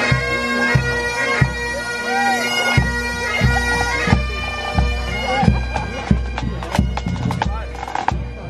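Pipe band playing: Highland bagpipes holding steady drones under the chanter melody, with a bass drum beating a steady march pulse about one and a half times a second. Sharper side-drum strikes come in near the end.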